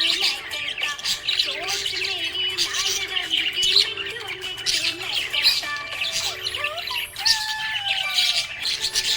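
Budgerigars chirping and warbling in a rapid, continuous stream of high chirps, over background music with held tones and sliding notes.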